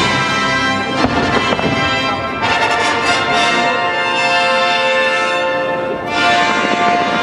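Orchestral music with brass, playing loudly and steadily with sustained notes.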